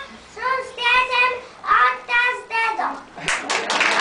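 A young boy singing a short verse solo in a sing-song child's voice, a few held phrases, ending about three seconds in. Applause from many hands breaks out right after.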